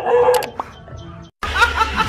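A dog gives a drawn-out call that fades within the first half second. After a brief silent break about a second and a half in, music plays with a woman laughing.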